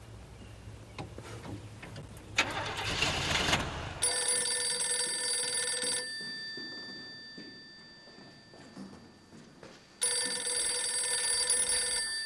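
A car engine running, with a brief louder rush of noise about two and a half seconds in, then an old rotary desk telephone's bell ringing twice, each ring about two seconds long and four seconds apart.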